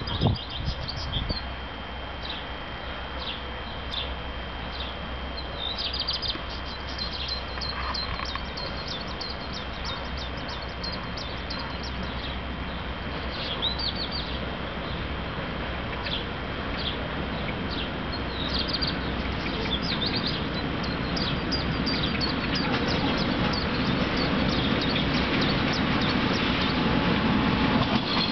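Songbirds chirping and twittering throughout. Under them, the low rumble of a freight train hauled by an electric locomotive grows steadily louder through the second half as the train approaches. A couple of short, louder sounds come right at the start.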